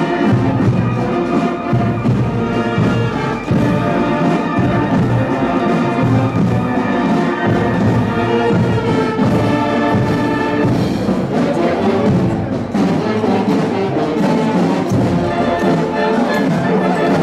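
School marching band playing brass instruments over a steady drum beat, loud and continuous.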